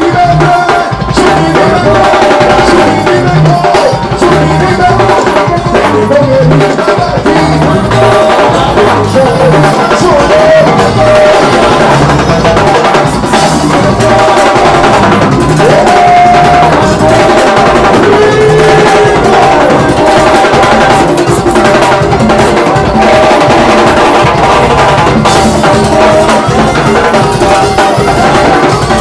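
Live band music played loud, driven by a drum kit and timbales in a busy, even rhythm, with a steady low pulse and pitched melody lines over it.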